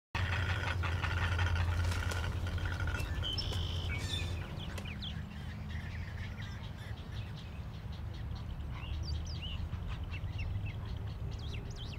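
Many birds calling and chirping at a waterbird nesting colony, short rising and falling calls overlapping, over a steady low rumble that is louder in the first few seconds.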